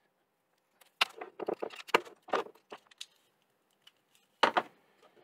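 A white USB cable being handled and its plug pushed into a plastic power bank: a quick run of small plastic clicks and rattles about a second in, then a sharper click near the end as the plug goes in.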